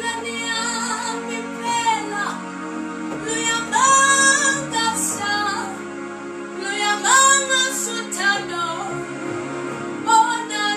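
A woman singing a slow Zulu gospel praise song, holding long notes with vibrato, accompanied by sustained chords on an electronic keyboard.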